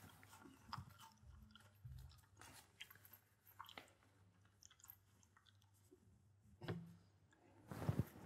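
Near silence: faint room tone with a low steady hum and scattered small clicks, and a louder short noise near the end.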